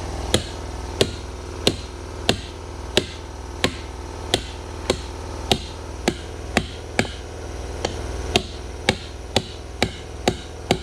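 Repeated hammer blows, about one and a half strikes a second with slightly uneven spacing, over a steady low hum.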